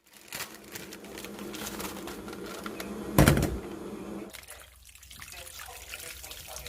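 Water running from a kitchen tap into a sink, with one loud knock a little over three seconds in. The water stops about a second later, leaving small clatters.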